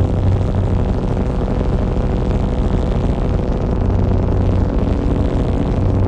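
Ambient electronic soundscape playing: a steady deep rumbling drone with a strong low hum and a few held higher tones.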